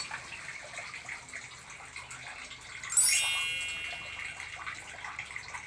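A single bright ringing ding about three seconds in, dying away over about a second and a half, over a steady low hiss.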